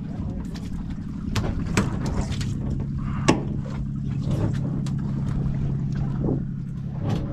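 Boat engine idling with a steady low hum, over which gear knocks and clatters a few times against the aluminium boat, the loudest knock about three seconds in.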